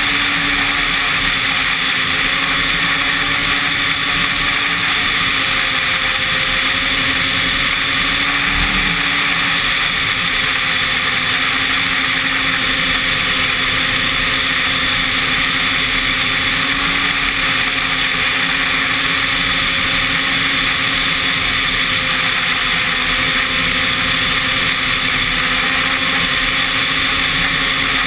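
Snowmobile engine running at a steady cruising speed, its pitch holding nearly constant, under a continuous rushing noise.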